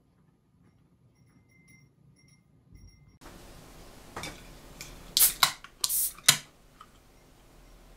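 Aluminium drink can opened by its pull tab: a quick run of sharp clicks and a short fizzing hiss of escaping gas, loudest about six seconds in.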